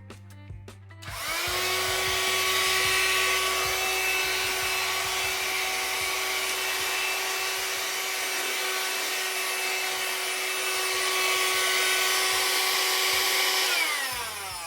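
Parkside PHSSA 20-Li C1 20 V cordless handheld vacuum cleaner switched on about a second in: its motor spins up to a steady high whine and runs for about thirteen seconds, then is switched off and winds down near the end.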